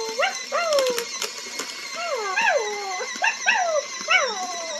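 Present Pets interactive toy puppy playing its electronic puppy sounds: a string of short yips and whimpers, each falling in pitch, over a steady hiss, with a few clicks in the first second and a half.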